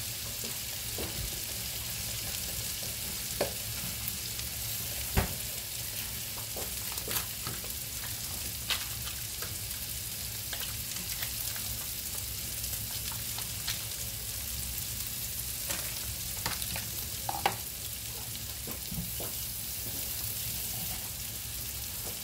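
Two steaks frying in butter with garlic in a non-stick pan, sizzling steadily, with scattered pops and spits of hot fat, the sharpest about five seconds in and again near seventeen seconds.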